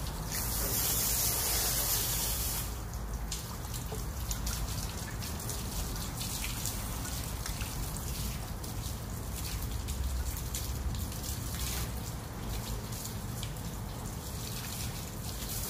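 Water from a garden hose spraying onto a German Shepherd's coat, loudest for the first couple of seconds. It then keeps up a patter of drips and small splashes on the wet patio.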